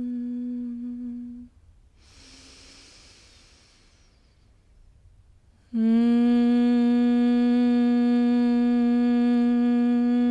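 A woman humming one steady, unbroken note on the exhale of bhramari (humming bee) breath. The hum stops about a second and a half in, a soft inhale through the nose follows, and a new hum starts a little over halfway through and holds at the same pitch.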